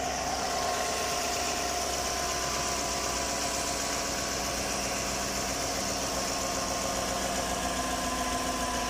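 Chevrolet Tahoe engine idling steadily, heard up close in the engine bay.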